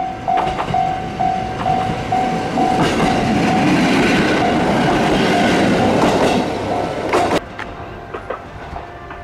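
Diesel railcar passing on the line with wheels clattering and engine running, loudest for a few seconds, over a level-crossing bell dinging about three times a second. Both stop suddenly about seven seconds in.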